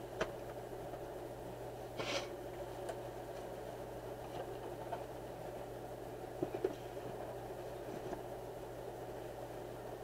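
Graphics card box being handled and closed: a brief scrape about two seconds in and a few light taps, over a steady background hum.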